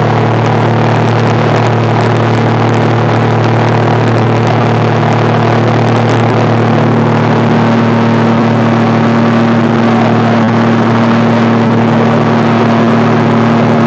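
Motorboat engine running loudly at a steady speed, its pitch holding constant throughout.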